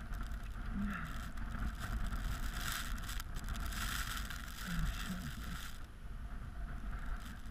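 Wind buffeting the microphone of a body-worn camera: a steady low rumble with gusts that swell and ease, dropping off briefly near the end.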